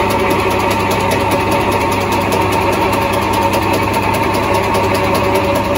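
Metal lathe running steadily with its chuck spinning a pipe: a constant mechanical hum with a few held tones.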